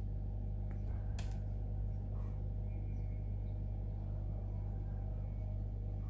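A steady low background hum, with a small sharp click a little over a second in as the wiring and its connectors are handled.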